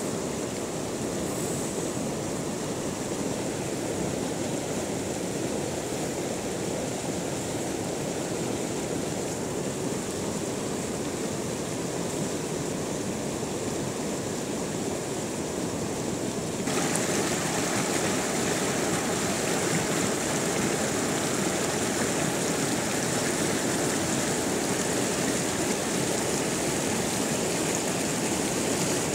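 Rushing mountain stream, a steady wash of water over rocks, suddenly louder and brighter a little past halfway through.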